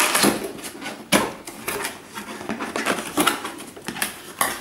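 Cardboard packaging being opened and handled: rustling and scraping of cardboard flaps, with a series of sharp knocks, the loudest about a second in.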